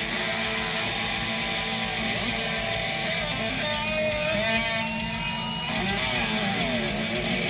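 Live heavy-rock band playing, with loud electric guitar. Sliding, bending pitches come in about halfway through.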